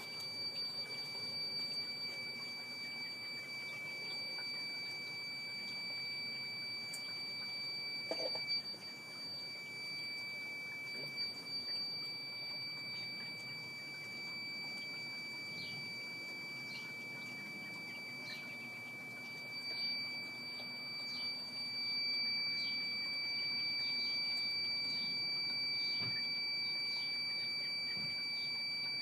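Battery backup sump pump system sounding a continuous high-pitched electronic alarm tone, steady and unbroken, as it runs on battery power.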